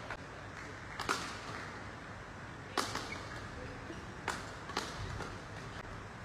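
Badminton rackets striking a shuttlecock back and forth in a doubles rally: about five sharp hits at irregular spacing, two of them close together about a second in.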